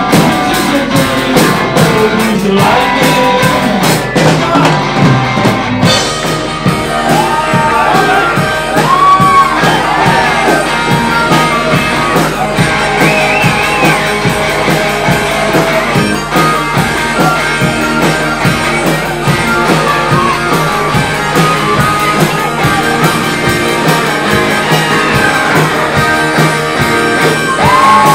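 Live rock-and-roll band (electric guitar, drum kit) playing an instrumental break, with an amplified harmonica solo bending notes up and down over it.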